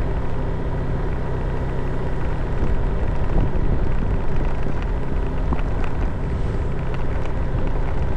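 Steady running noise of a vehicle with wind rushing over the microphone.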